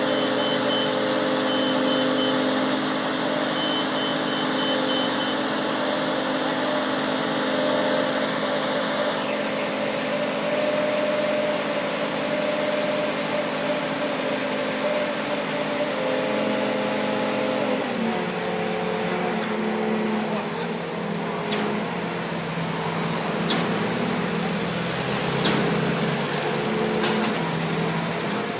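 Crane engine running steadily under a lift, its pitch dropping about two-thirds of the way through. A high thin tone comes and goes in the first several seconds.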